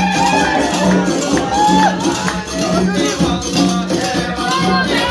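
Live Amazigh (Berber) music: hand drums beating a fast, even rhythm, with voices over it.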